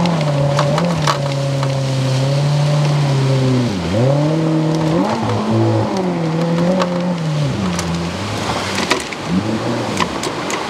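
Outboard motor driving the water jet of an inflatable PVC jet boat under way through rapids. The revs rise and fall as it manoeuvres, dropping sharply about four seconds in and wavering again later, with a few sharp ticks over the water noise.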